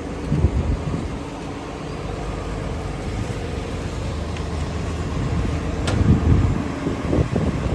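Komatsu PC360LC-11 excavator's diesel engine running steadily, with a sharp click and a louder low rumble about six seconds in.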